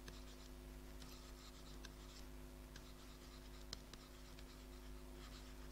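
Faint scratches and light taps of a stylus writing on a tablet, one tap a little sharper shortly before the end, over a steady low hum.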